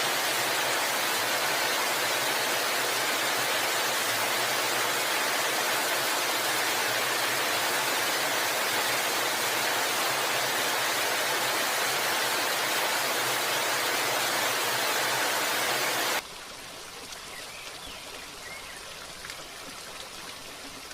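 Steady rush of flowing water. About sixteen seconds in it cuts suddenly to a much quieter, softer flow.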